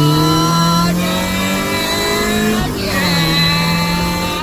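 1996 Honda Prelude Si's H23A1 four-cylinder engine pulling under acceleration, its pitch climbing, dropping at an upshift about two and a half seconds in, then climbing again. The engine is running well; a compression test has shown it to be solid.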